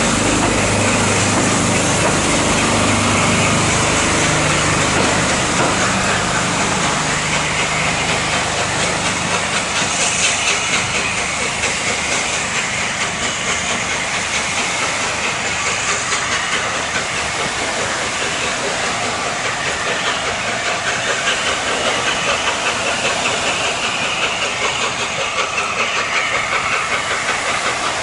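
Steam train: a steady hiss of steam over the rumble of the train, the low rumble fading after about six seconds while the hiss carries on.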